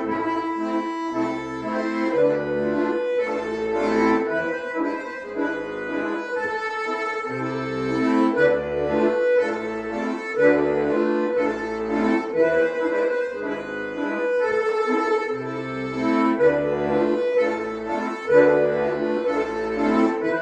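Two bayans (Russian chromatic button accordions) playing a folk tune in duet: a sustained melody over a regular left-hand bass-and-chord accompaniment.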